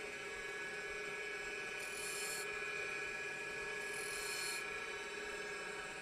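Wood lathe running steadily with a motor whine, spinning a wooden handle. Twice, about two and four seconds in, a small pointed turning tool is touched to the spinning wood and cuts a groove, with a short hissing scrape each time.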